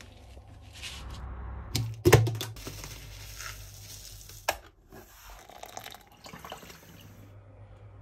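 A plastic cup scooping dry mealworms out of a plastic tub: a rustling, pouring sound of the worms sliding against the plastic, opened about two seconds in by a couple of loud knocks and broken by a sharp click a little later.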